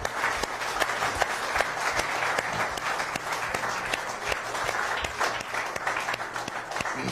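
Studio audience applauding, a steady mass of many hands clapping.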